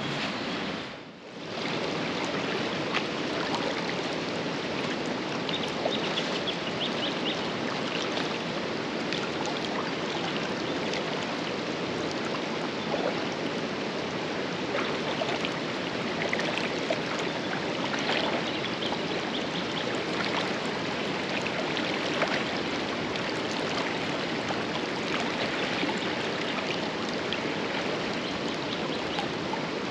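Swollen, flooded river rushing steadily, with scattered faint sharp ticks over the flow. The sound drops out briefly about a second in.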